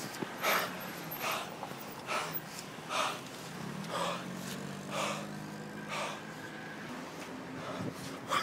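A person breathing hard close to the microphone, with heavy puffing breaths about once a second.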